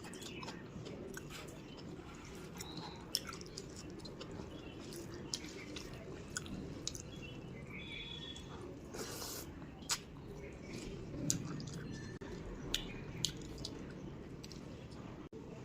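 A person chewing a mouthful of rice and curry, with many irregular wet clicks and smacks from the mouth over a steady low background noise.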